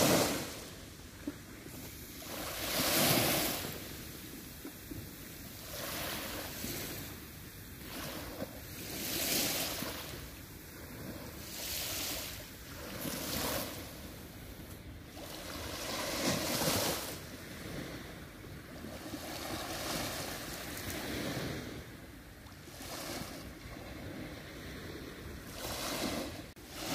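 Small sea waves breaking and washing up on a sandy shore, each rush of surf swelling and fading every two to three seconds.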